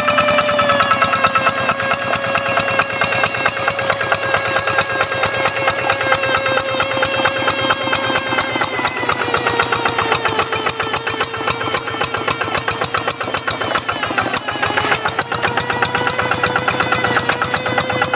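Quick G1000 Boxer hand tractor's single-cylinder diesel engine running steadily under load while ploughing wet paddy mud. Its pitch sags slightly early on and picks up again near the end.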